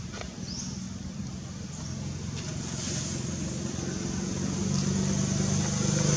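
A motor vehicle's engine running, a low hum that grows steadily louder as it approaches.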